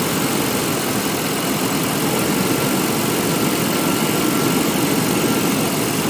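GM 5.7-litre throttle-body-injected V8 idling steadily. One spark plug wire is shorted to ground at the distributor cap for a cylinder cutout test.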